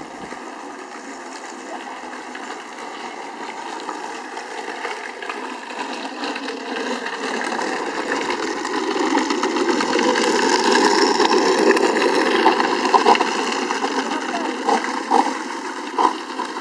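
Small hard plastic wheels of a ride-on toy car rolling down an asphalt lane, a steady rumble that grows louder and then eases off, with a few sharp knocks near the end.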